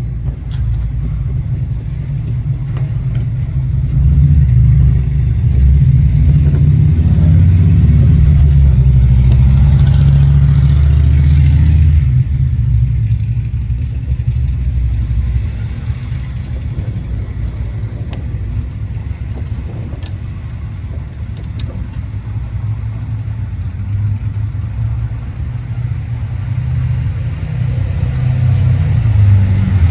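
Road traffic on a city street: cars passing, with a heavy low rumble that swells about four seconds in and eases off about twelve seconds in.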